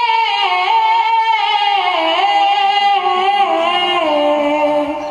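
A woman singing a naat unaccompanied into a microphone, drawing out one long word in a wavering, ornamented melody that steps slowly down in pitch.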